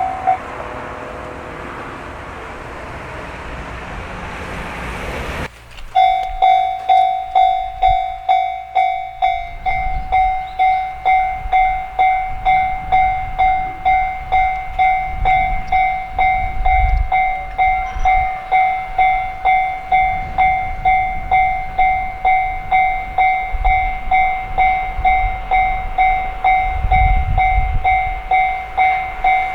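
A train running past for about five seconds, then, after a sudden cut, a Japanese railway crossing's electronic warning bell dinging steadily at a little under two strokes a second, with low rumbles underneath now and then.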